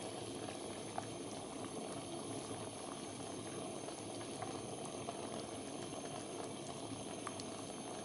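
A pot of soaked whole wheat grains and rice boiling hard in water: steady bubbling at a rolling boil, with a few faint small pops.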